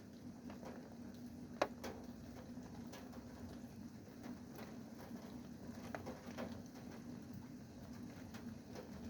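Rain drops tapping irregularly on a hard surface, with a steady low hum beneath. One tap, about one and a half seconds in, is louder than the rest.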